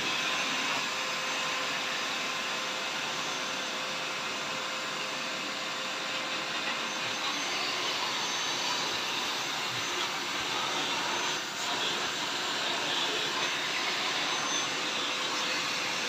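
Arnica Hydra Rain Plus washing vacuum cleaner running at full, powerful suction, its clear nozzle drawn over a carpet. A steady rushing noise with a faint whine, dipping briefly about two-thirds of the way through.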